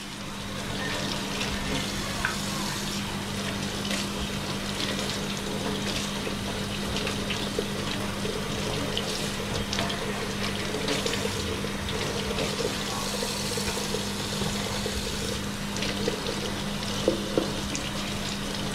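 Kitchen faucet running steadily into a stainless steel sink as crappie fillets are rinsed by hand under the stream, with a steady low hum underneath.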